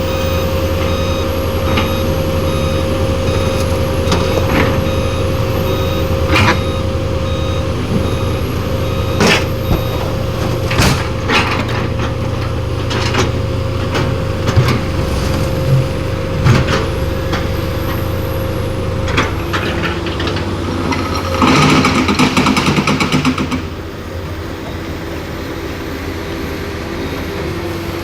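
Heavy diesel trucks and earth-moving machines running, a low engine rumble with a steady high tone and scattered sharp knocks and clanks. Near the end a loud rattling hiss lasts about two seconds, then the machinery noise drops.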